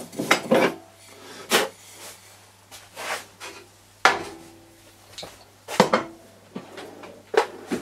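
Metal clinks and knocks as a lathe chuck is unscrewed by hand from the headstock spindle and handled: about six separate knocks a second or so apart, over a faint steady low hum.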